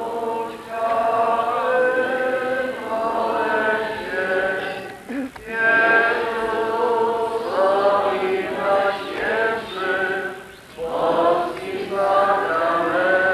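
A congregation of many voices singing a slow church hymn together, with long held notes and brief pauses between lines.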